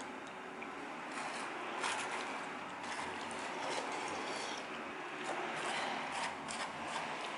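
A disposable soba bowl and chopsticks being handled: scattered light clicks and scrapes over a steady room hum.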